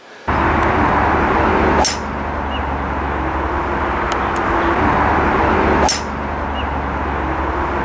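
Steady outdoor rumble and hiss, broken twice, about four seconds apart, by the sharp click of a golf club striking a ball.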